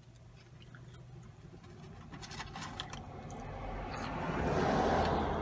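A vehicle driving past on the road outside the parked car: its tyre and engine noise swells gradually, is loudest about five seconds in, and starts to fade.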